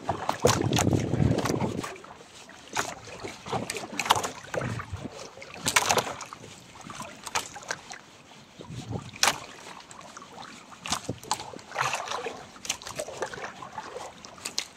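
Wind buffeting the microphone for the first couple of seconds, then scattered short clicks and knocks as fishing line is hauled and caught fish are unhooked in a wooden outrigger boat.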